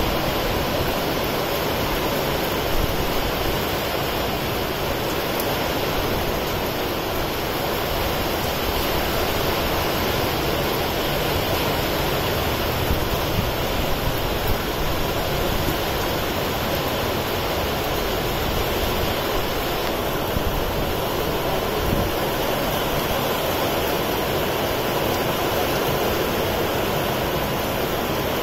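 Heavy rain falling steadily: an even, unbroken rushing hiss.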